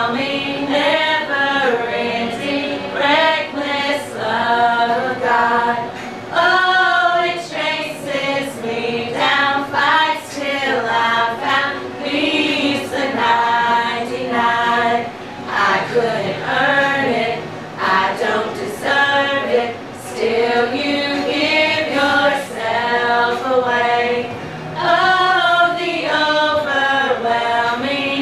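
A small group of women singing a hymn a cappella in harmony, with no instruments.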